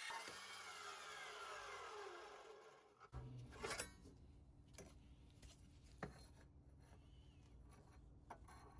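Custom Milwaukee cold cut saw's motor and blade spinning down after a cut through steel pipe, the whine falling steadily in pitch over about two and a half seconds and fading out. A few faint clicks follow.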